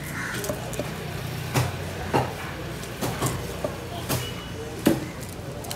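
A large knife chopping through a tuna loin into steaks, striking the wooden cutting board in sharp thuds, about half a dozen at irregular intervals, over a steady low hum.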